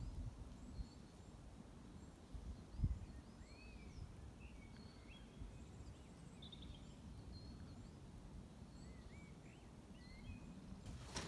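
Small birds chirping and twittering faintly, over a low rumble. A single thump about three seconds in is the loudest sound.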